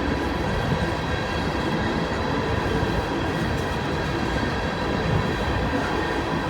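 Freight train's cars rolling past at close range: a steady, continuous rumble of wheels on rail with faint high steady tones above it.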